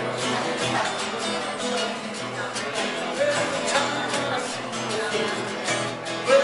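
Two acoustic guitars strummed together in a live duo performance, with a man singing lead into a microphone.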